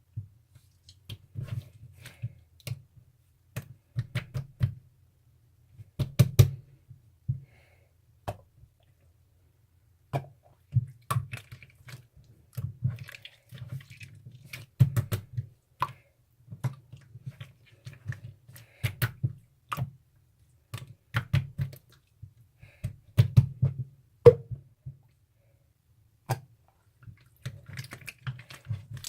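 Irregular clusters of sharp taps and clicks, each cluster with a dull low thump, with short gaps between them and a longer pause about eight seconds in.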